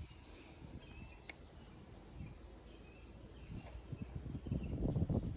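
Quiet outdoor ambience with a steady high-pitched insect chirr, typical of crickets, one faint click about a second in, and a low rumble building near the end.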